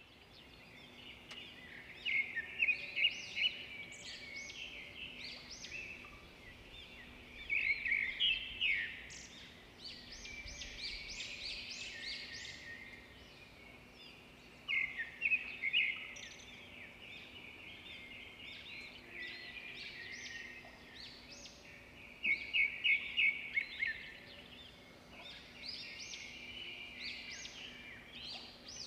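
Birds chirping in bursts of rapid high calls, loudest every six or seven seconds with quieter calling in between, over a faint steady low hum.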